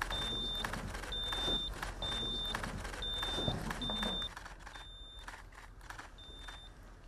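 Camera shutters clicking rapidly at a press photo call, with a high electronic beep repeating about once a second. The clicking gets quieter about four seconds in.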